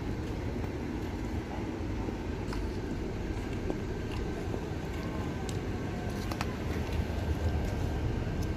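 Steady low rumble of outdoor background noise, with a faint steady high whine and a few light clicks.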